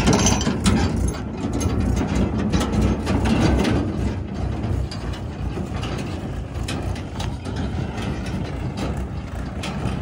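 Mahindra 475 DI tractor's diesel engine running as it pulls a steel tipping trailer, with the trailer's body and hitch rattling and clanking over rough ground. Loudest in the first few seconds, easing off somewhat as it moves away.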